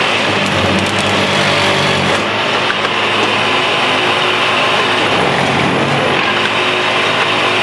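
Electromatic Tamper Mark II track tamper at work: its engine running while the tamping tines vibrate down in the ballast, a loud steady mechanical din.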